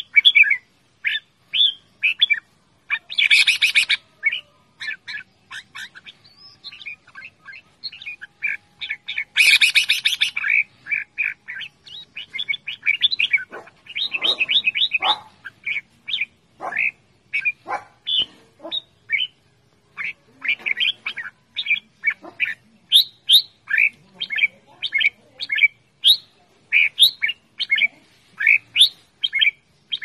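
Red-whiskered bulbul calling over and over: quick runs of short, chirpy whistled notes, with two louder, harsher bursts about 3 and 10 seconds in.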